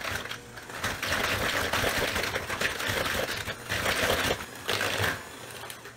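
Electric hand mixer running, its beaters whirring through butter, egg and brown sugar in a plastic bowl. It drops off and quietens near the end.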